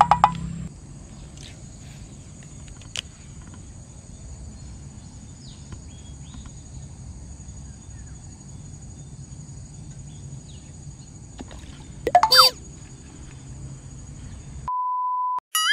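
Rural outdoor ambience dominated by a steady high-pitched insect drone. About twelve seconds in there is a short loud burst, and near the end a steady beep, a brief dropout and then a wobbly boing-like sound effect.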